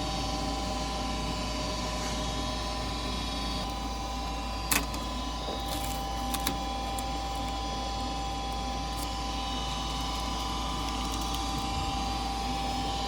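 Goodman gas furnace's draft inducer motor running at speed after starting up, a steady whine over a low hum. A sharp click comes about five seconds in, and two faint ticks follow a second and a half later.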